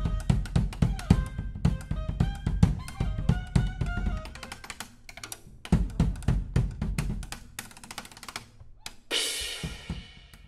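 Live drum kit played hard: rapid hits on kick drum, snare and toms, with a few held notes from other instruments underneath. The playing thins out around four seconds in, picks up again, and ends on a cymbal crash about nine seconds in that rings and fades.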